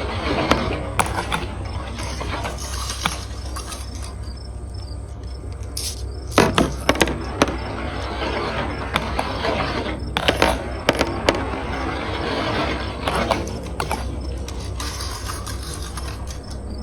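Marbles rolling down a marble run's slide track: a steady rolling rattle broken by frequent sharp clacks, with louder bursts of clatter several times as marbles knock against the track and each other.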